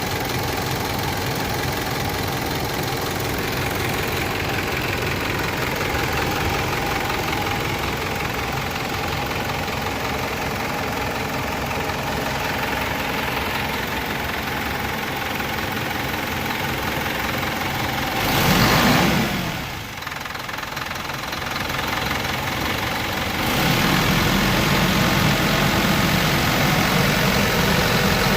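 Mitsubishi Fuso 4M50 four-cylinder diesel engine idling with a knocking clatter: the abnormal noise traced to the bottom end, where worn pistons and liners had to be replaced. The throttle is blipped briefly about two-thirds through, and the running grows louder and deeper for the last few seconds.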